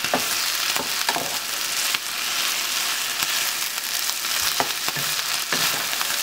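Ground beef and sliced mushrooms sizzling steadily in a frying pan while a wooden spoon stirs them, with a few brief knocks and scrapes of the spoon against the pan.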